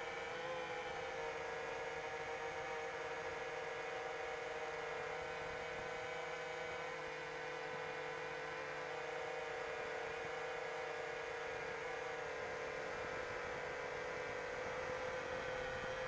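iFlight Chimera7 Pro 7-inch FPV quadcopter's motors and propellers humming steadily in cruising flight, a droning tone with higher overtones whose pitch wavers only slightly, heard from on board.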